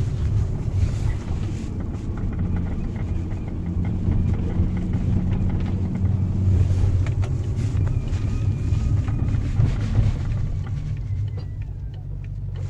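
BMW E60 545i's V8 running with a steady low drone, a faint high squeak coming and going over it: the strange squeak the car is being recorded for.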